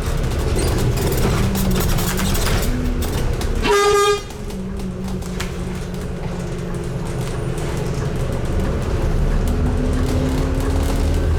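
Scania N250UD double-decker bus running, heard from inside the bus, with one short horn toot about four seconds in; right after it the engine sound drops. A faint rising whine comes in near the end.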